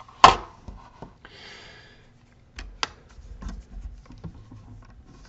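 Handling noise from a plastic enclosure and its QR code module being shifted about: scattered light clicks and taps, a sharp click just after the start, a brief rub about a second in, and two more clicks near the middle.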